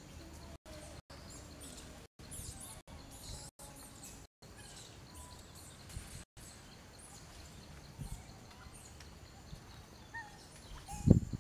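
Outdoor ambience with birds chirping faintly, the sound cutting out briefly several times in the first few seconds. A single loud low thump comes near the end.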